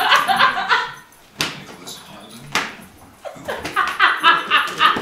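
A young Weimaraner making rapid, repeated vocal sounds while play-fighting over a towel. The calls come in the first second and again in short bursts over the last two seconds. In the quieter middle stretch there are two sharp knocks.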